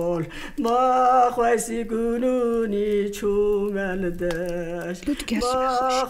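Funeral lament by mourners: voices chant and wail a wavering line over a steady low held note, which breaks off about five seconds in before the voices start again.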